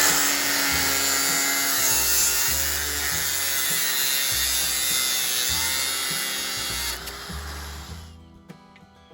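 Background music with a steady, repeating low beat. Over it, a loud steady noise covering the whole range drops away about seven to eight seconds in, leaving the music alone.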